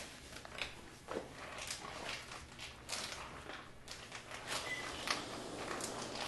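Kitchen handling sounds: a clear plastic bag being crinkled and opened, with a spatula stirring and scraping in a glass bowl, as a run of short crackles and clicks.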